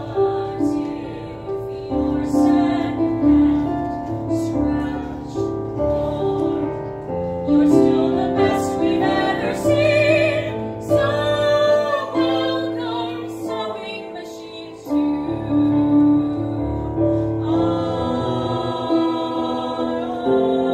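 A woman singing a slow show tune with piano accompaniment.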